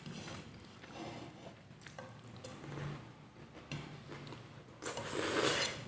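Faint eating sounds: soft chewing of a mouthful of rice and fish, with small clicks of fingers picking food off a plate.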